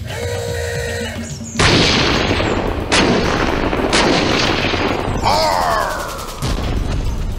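Toy-tank cannon-fire sound effects: after a steady electronic tone, three sharp blasts about a second apart, followed by a falling whistle.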